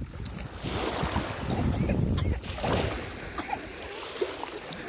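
Wind gusting on the microphone over small waves washing at the water's edge, with the low rumble strongest about two seconds in.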